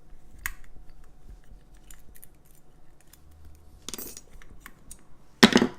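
Small metal clicks and rattles from handling an opened lever padlock and its picks, with a short clatter about four seconds in and a louder clunk near the end.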